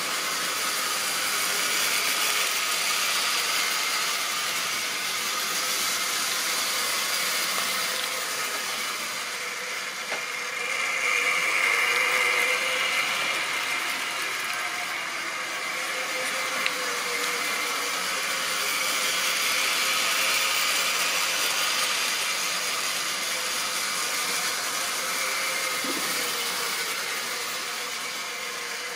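Tri-ang model trains running on the track: a steady whirring of the small electric motors with the metal wheels rattling over the rails, swelling louder twice as trains pass close by.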